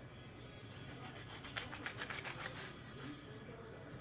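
Kitchen knife sawing through a tomato onto a plastic cutting board: faint scraping strokes, with a quick run of them about halfway through.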